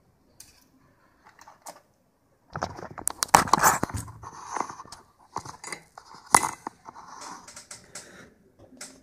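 Packaging of a resistor kit being handled: a few faint clicks, then from about two and a half seconds in a busy stretch of crinkly rustling and sharp clicks.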